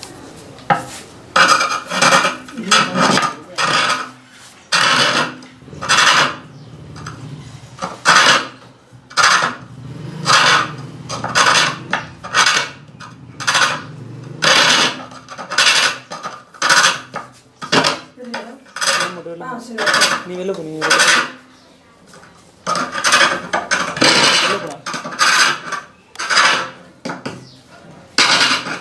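A steel chisel scraping and cutting a wooden nadhaswaram body as it turns on a hand-pulled rope lathe. The scraping comes in repeated strokes about twice a second as the rope is drawn back and forth, with a short lull a little past two-thirds through.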